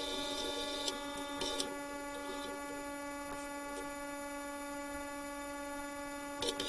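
Steady electrical hum made of several even tones, with a run of sharp crackles starting near the end.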